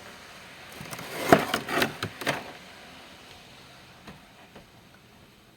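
Boxes of fireworks and sparklers being handled: a handful of sharp knocks and taps between about one and two and a half seconds in, then faint rustling.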